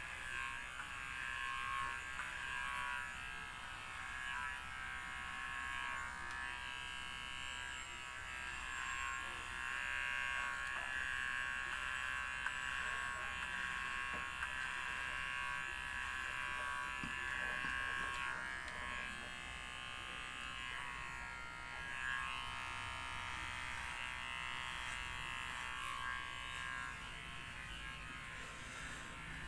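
Electric hair clippers buzzing steadily while cutting a head down to the scalp, the tone shifting slightly now and then as the blade is pushed across the hair.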